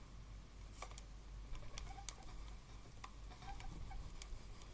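Faint scattered clicks and light taps of hands handling quilting fabric pieces and a pin, and picking up a clothes iron, over a low steady hum.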